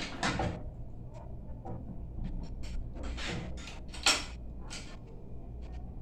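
Kitchen knife cutting potatoes over a steel pot: a run of short clicks, knocks and brief scrapes, with one sharp click about four seconds in.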